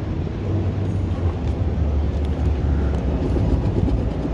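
A steady low outdoor rumble, with faint scrapes of a coin rubbing the coating off a scratch-off lottery ticket.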